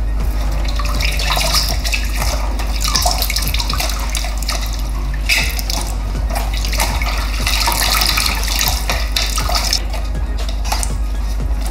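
Water sloshing and splashing in a kitchen sink as the clear plastic dust bin of a Dyson V8 vacuum is scrubbed with a cloth, in uneven swells, over background music.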